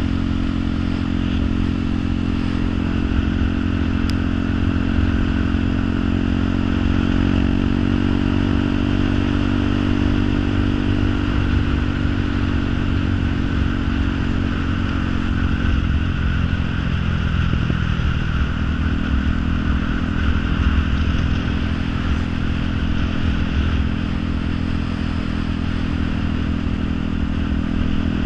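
A motor or engine drone running steadily over a constant hiss. Its pitch sinks slowly to a low point about two-thirds of the way through, then rises back.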